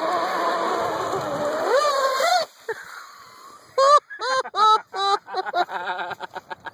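Traxxas Blast RC boat's 9-turn Leopard brushless motor running under throttle with a wavering pitch. The pitch rises, then the motor cuts off about two and a half seconds in. About a second later comes a string of short, loud pitched blips, getting quicker near the end.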